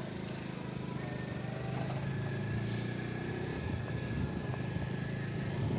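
Motorcycle engine running steadily under way, with a faint steady high whine coming in about a second in.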